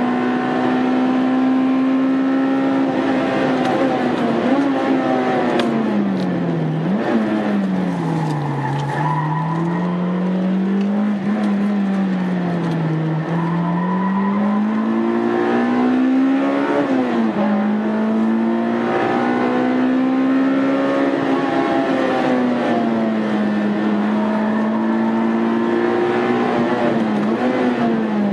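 Honda Integra Type R's four-cylinder engine driven hard on track, heard on board. It holds high revs, drops away under braking with quick throttle blips on the downshifts about four times, and pulls back up through the revs between corners.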